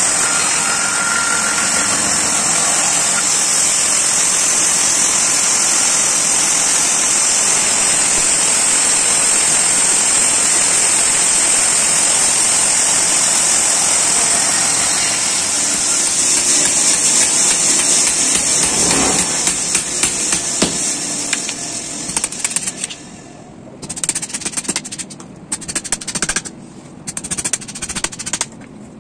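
Band saw running and cutting through a log, a steady loud noise with a strong high hiss. About three-quarters of the way through it dies away and gives way to irregular sharp knocks and cracks as a hatchet chops and splits strips off a log standing on a chopping block.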